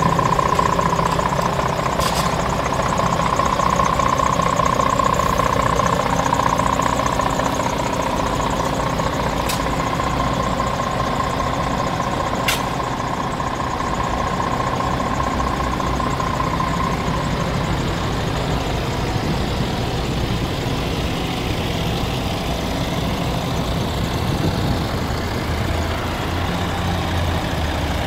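Scania R410 tractor unit's 13-litre inline-six diesel idling steadily. A steady high whine rides over it for roughly the first half, then fades out, and there are a few faint clicks.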